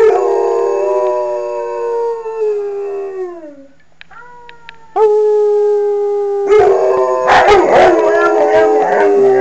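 Two German Shepherd-type dogs howling. One long howl sags in pitch and fades out after about three and a half seconds. After a short pause a second long howl starts, and a second dog joins in about a second and a half later, so the two howls overlap.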